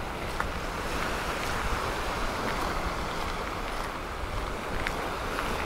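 Steady rushing of wind and water, with wind buffeting the microphone in a low rumble.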